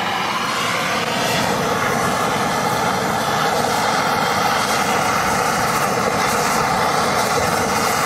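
Hand-held MAPP gas torch burning with a steady, even hiss, its flame played onto a pile of insulation.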